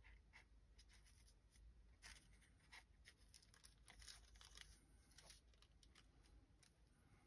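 Very faint rustling and small crinkling clicks of a thin Hollytex polyester sheet being smoothed and handled over wet comic book pages.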